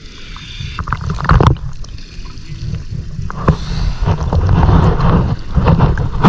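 Water sloshing and gurgling, surging loudest about a second in and again from about four to six seconds in.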